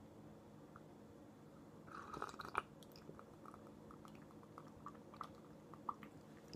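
A person sipping a cold drink and swallowing in a run of quiet gulps, with a sharp click about two and a half seconds in.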